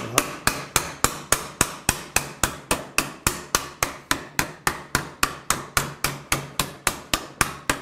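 Ball-peen hammer striking thin sheet steel held in the jaws of a steel bench vise, a steady run of sharp metallic blows at about four a second: the sheet is being cold-formed by hammering.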